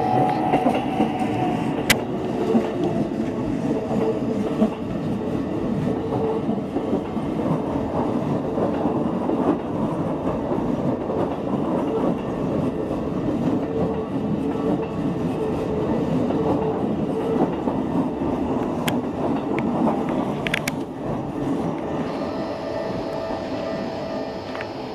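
Keikyu electric trains passing close by over a level crossing: a continuous loud rumble of steel wheels on rail with clickety-clack over the rail joints, a humming tone underneath, and a few sharp clicks. The noise eases off over the last few seconds.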